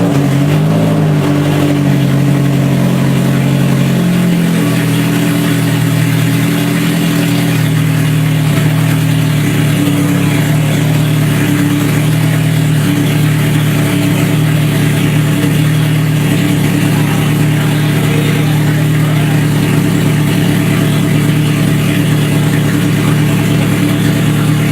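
Freshly rebuilt Toyota 3S-GE inline-four running in the first seconds after its first start since the rebuild. Its speed wanders for the first several seconds, then it settles into a steady idle.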